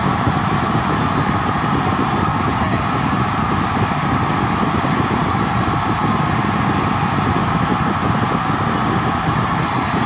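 Stadium crowd cheering for a go-ahead late touchdown: a loud, steady, unbroken wall of noise.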